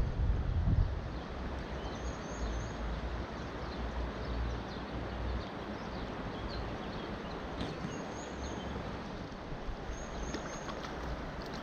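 Steady rush of river water flowing over stones, with wind buffeting the microphone for about the first second.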